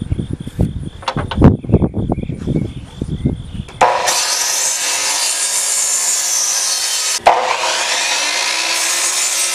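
A 2x4 being handled and marked on the saw table: irregular knocks and rubbing, one loud knock about a second and a half in. About four seconds in, a sliding compound miter saw starts cutting through the pine 2x4, making a steady high cutting noise. The noise drops out sharply for a moment near seven seconds, then runs on steadily.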